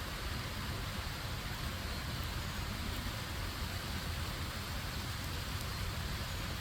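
Steady rush of flowing stream water with a low rumble underneath.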